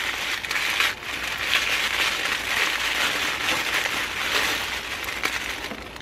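Tissue paper being unwrapped and crumpled by hand, a steady crinkling rustle with many small crackles.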